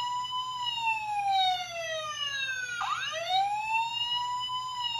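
Tonka Lights and Sound fire engine toy playing an electronic siren effect: a wail that rises, then slowly falls, starting over sharply about three seconds in.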